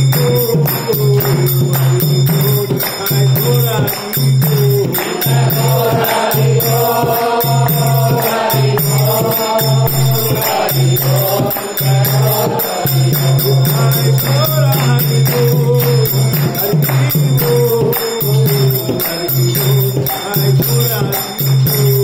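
Devotional kirtan chanting: sung melody over a steady, even beat, with jingling percussion strokes and a pulsing low drum or drone.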